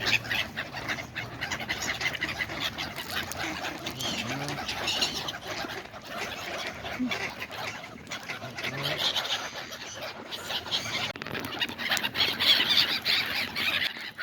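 A flock of waterfowl at a pond calling together, many short overlapping calls with no let-up, getting busier near the end.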